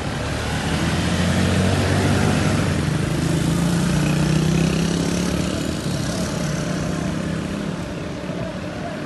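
Develon wheeled excavator's diesel engine working, revving up about a second in and holding higher under load for several seconds before easing back.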